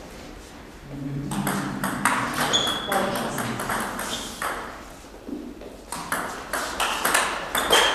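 Table tennis rally: the celluloid ball clicking off the table and the rubber paddles in quick, uneven succession. There are two bursts of play, one starting about a second in and another after about six seconds, with a quieter gap between them.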